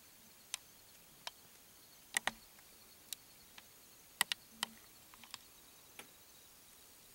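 About a dozen sharp, irregular clicks and ticks over a faint steady background, two of them coming close together as pairs about two and four seconds in.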